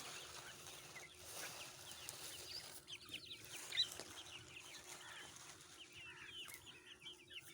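A flock of chickens calling all at once: a dense chorus of many short, high, overlapping calls, over a faint steady hum.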